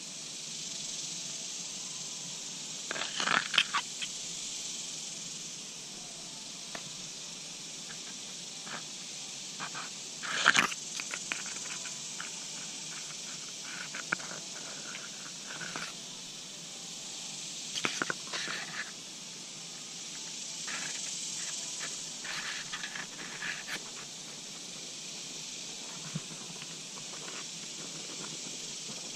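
Intermittent crunching and scraping in several short clusters over a steady hiss; the loudest cluster comes about ten seconds in.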